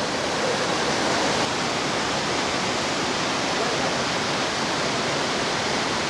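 Waterfall: water falling in many thin streams from a cliff into a pool, a steady rush of splashing water.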